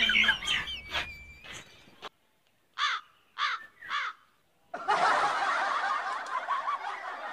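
Three crow caws about half a second apart, each falling in pitch, then from about five seconds in a stretch of dubbed-in laughter, a comic sound effect.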